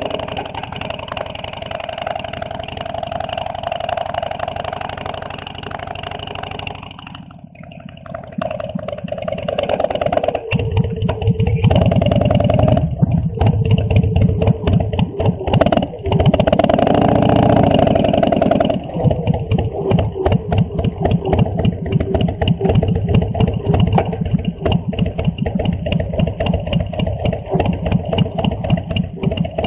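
Harley-Davidson V-twin motorcycle engine running under way. It eases off about seven seconds in, then pulls harder again. Later it runs at low revs with an even, pulsing beat.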